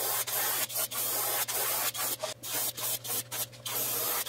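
Airbrush spraying paint in a run of hissing bursts, broken by many short gaps that come closer together in the second half, over a steady low hum.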